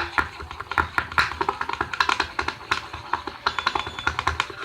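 Rapid, irregular clicking and tapping, several short taps a second, with no steady tone between them.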